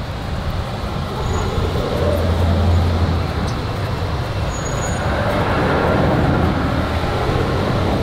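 Steady low rumble of background road traffic, swelling twice.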